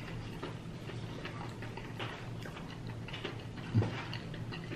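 Close-up eating sounds: small wet clicks and smacks of chewing, over a low steady hum, with one louder thump nearly four seconds in.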